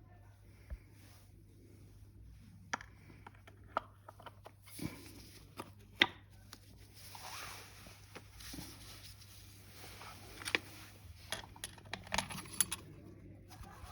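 Tools and small metal parts clinking, tapping and scraping while a starter motor is worked on by hand: irregular sharp clicks, the loudest about six seconds in and several close together near the end, over a steady low hum.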